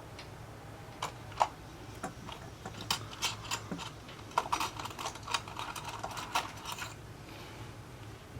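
Small repair tools clicking and tapping against an Apple Watch's case and internal parts during disassembly: a quick, irregular run of light clicks and scrapes over a low steady hum.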